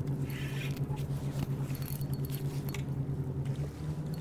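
Electric drive motor of an Old Town Sportsman Autopilot fishing kayak humming steadily, stepping up slightly in pitch near the end. Soft scratchy ticks from a spinning reel being cranked sit over it.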